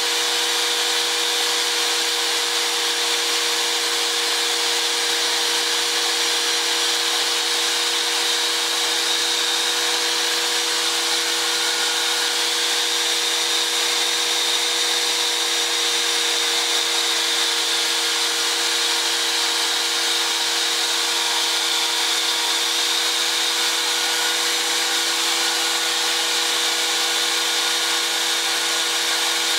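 Toolpost grinder spinning a mounted abrasive wheel while a diamond dresser trues its face, with a vacuum hose drawing off the grit: a steady motor hum with a dense hiss over it.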